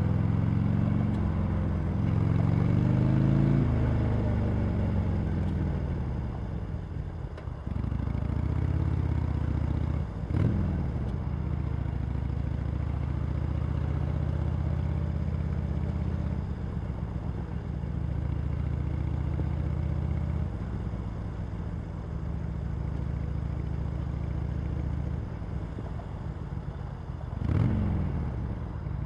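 Harley-Davidson Sportster Iron 883's air-cooled V-twin on its stock exhaust, under way. The revs climb over the first few seconds and fall away, rise briefly again about ten seconds in, then hold steady for a long stretch, with another sharp rise in revs near the end.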